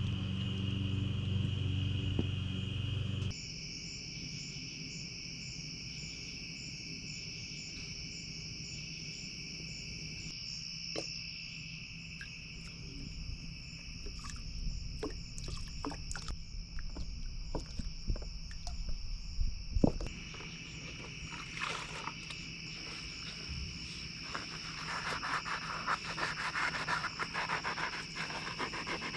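A low hum cuts off about three seconds in, leaving a steady high-pitched chirring of crickets. Scattered clicks and knocks come from handling a bottle and sponges. In the last few seconds a sponge scrubs the motorcycle's engine case.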